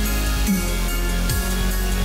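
Background music: an electronic track with deep, sustained bass notes and a repeating beat.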